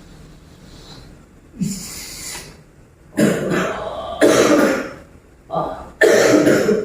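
A person coughing and clearing the throat: one fainter burst, then a run of loud, harsh coughs starting about three seconds in.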